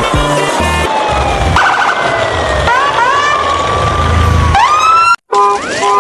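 Emergency-vehicle siren wailing in slow rising and falling glides, with a brief dropout about five seconds in.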